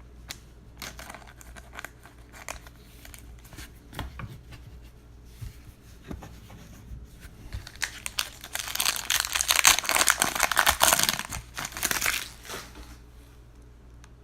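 Trading cards shuffled with light clicks, then a foil trading-card pack torn open and its wrapper crinkled loudly for about four seconds, starting about eight seconds in.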